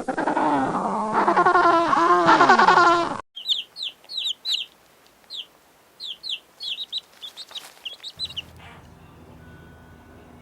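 Loud animal calls, rising and falling in pitch, cut off abruptly about three seconds in, followed by a small bird chirping in quick, high, separate notes for about five seconds, then a faint low hum.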